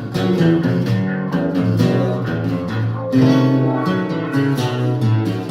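Instrumental guitar music: plucked and strummed guitar playing between sung verses, with no vocals.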